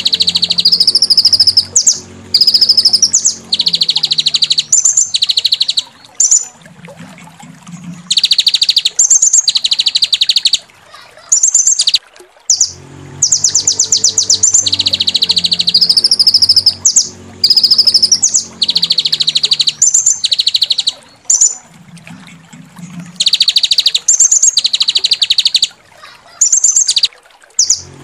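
Songbird training recording (masteran): harsh, rapid rattling trills ('tembakan'), high-pitched, in bursts of about a second with short gaps, the sequence repeating as a loop.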